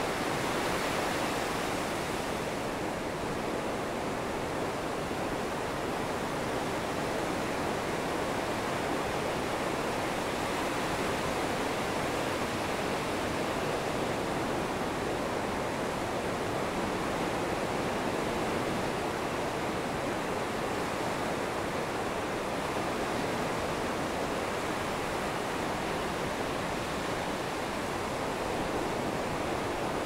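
Rough, storm-driven ocean surf breaking on a beach and washing around the pilings of a wooden pier: a steady rush of whitewater with no single wave standing out.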